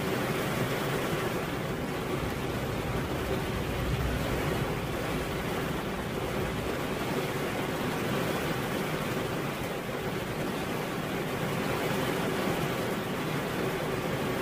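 Rain falling steadily, an even, unbroken wash of noise with no single drops or other events standing out.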